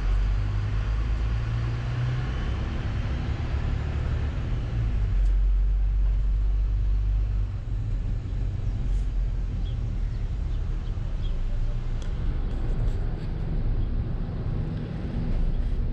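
Steady low rumble of a motor vehicle's engine and road noise, with a hiss that fades about five seconds in.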